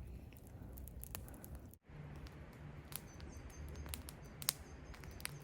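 Outdoor ambience with a small bird chirping in short, repeated high notes from about two seconds in, over scattered sharp clicks and ticks.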